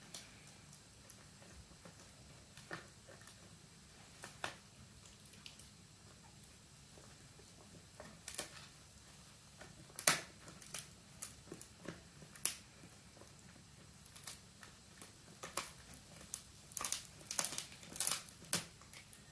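Italian greyhound chewing a dried pig ear: scattered crunches and cracks as the teeth bite into the hard ear, sparse at first, then louder, and crowding into a quick run of crunching near the end.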